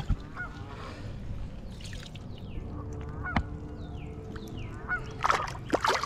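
Water splashing about five seconds in as a released largemouth bass kicks free of the hand in the shallows, over a steady outdoor hush with a few short bird calls.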